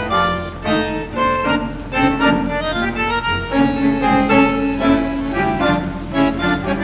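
Instrumental music: a melody of quickly changing notes over steady lower notes.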